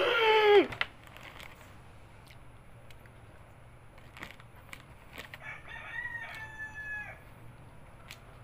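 A rooster crows: a short loud call at the very start that slides down sharply in pitch, then a fainter, longer crow about six seconds in.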